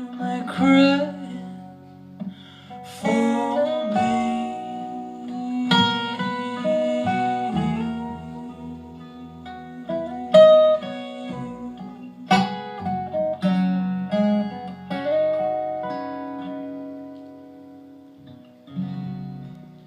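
Acoustic folk band playing the instrumental ending of a song, led by an acoustic guitar picking notes that ring out over held bass notes. The music grows quieter toward the end, and a last chord is struck just before the close.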